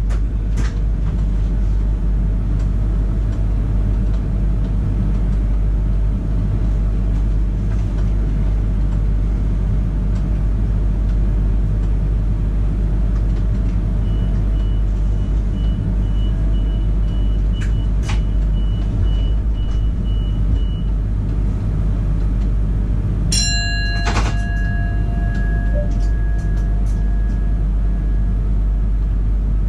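Electric Millennium-set suburban train standing at a platform, heard from the driver's cab: a steady low hum and rumble from its onboard equipment. About 23 seconds in, a sharp click is followed by a ringing tone that fades over a couple of seconds.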